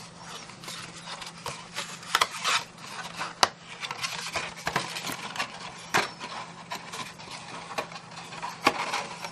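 Cardstock gift box being handled and folded closed: paper rubbing and rustling with scattered light taps and clicks, over a faint steady hum.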